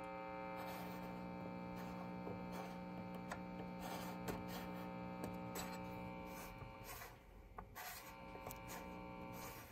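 Old AA5 tube radio's speaker giving a faint, steady mains hum and buzz with scattered crackles while it is tuned without picking up a station; the hum drops out briefly about seven seconds in, then comes back. The crackling is a sign of bad connections, which the owner puts down to a loose tube or heat-baked tube sockets.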